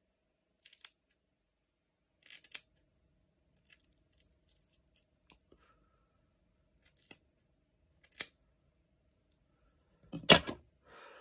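Hair-cutting scissors snipping through straight hair in a few separate, sharp snips several seconds apart. A louder knock and rustle comes near the end.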